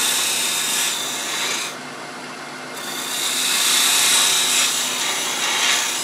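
Parting tool cutting a marking groove into a wooden blank spinning on a lathe, a steady scraping cut. It breaks off a little under two seconds in and starts again about a second later, over the lathe's steady running.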